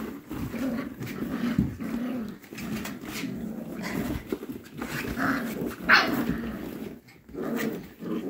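Goldendoodle puppies growling as they play-fight, with one short, sharper sound about six seconds in.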